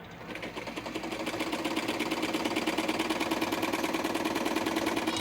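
Vintage Brother 151 sewing machine running under its motor, a fast, even mechanical clatter of the needle mechanism that builds up over the first couple of seconds, runs steadily, then stops near the end. The gears and mechanisms are freshly re-lubricated and running smoothly.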